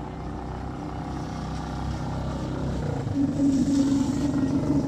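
Motor vehicle engine running and getting steadily louder, with a steady droning hum coming in about three seconds in.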